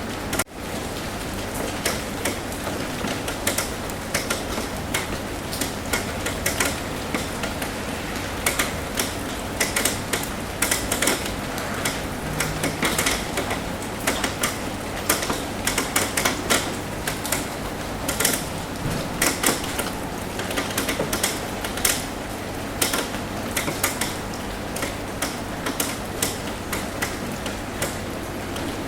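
Rain on a roof: a steady hiss of rainfall with many irregular, sharp drop taps over it. The sound cuts out for an instant about half a second in.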